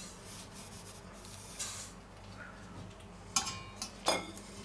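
Dry batter ingredients being tipped from small stainless-steel bowls into a large stainless-steel mixing bowl: a soft pouring hiss a little before two seconds in, then a few light metal clinks of bowl against bowl near the end.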